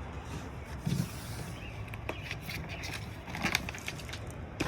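Cardboard and packing material being handled while parts are taken out of a scooter's shipping box: scattered rustling, scraping and light knocks over a steady low hum.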